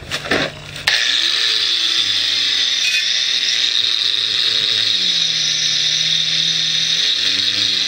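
A power tool starts about a second in after a few knocks and then runs continuously, a loud high hiss-like whine over a lower motor tone that rises and falls in pitch as the load changes.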